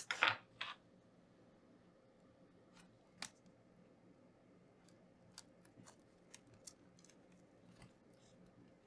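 Sparse faint clicks and light taps of hands and a small tool on the plastic and metal parts inside an opened laptop while its battery connector is being disconnected.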